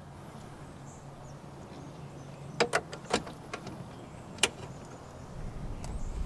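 A few sharp, irregular metal clicks from a ratchet with an extension and 10 mm deep socket being fitted onto a mirror-mounting nut inside a truck door, over a low steady hum.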